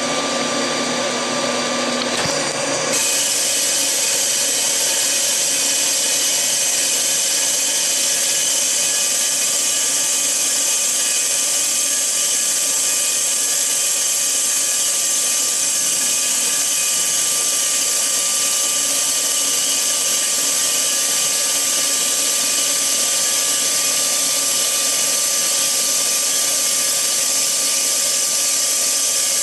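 A cylinder boring machine's boring bar runs in a cylinder of a Ford Model A cast iron engine block, boring it 30 thousandths oversize: a steady machine whine and hiss. About three seconds in the sound changes, turning a little louder and brighter, and then holds steady.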